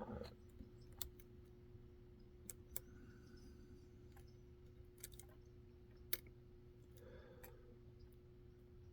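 Lock pick working the security pins inside a Kaba cylinder: a few faint, sharp clicks spread over several seconds, over a faint steady hum.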